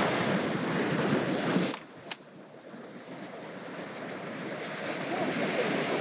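Sea surf washing onto a sandy beach, with wind buffeting the microphone. The noise drops sharply a little under two seconds in, a short click follows, then it slowly builds again.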